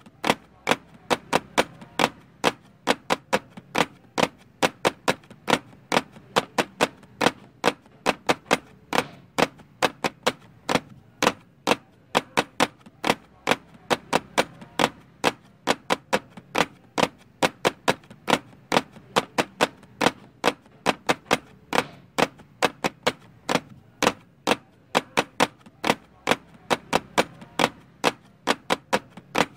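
Rapid, uneven clicking and tapping, several sharp clicks a second, typewriter-like, over a faint low hum. It runs on unchanged across a cut in the picture, so it is a backing track laid over the video rather than the cooking.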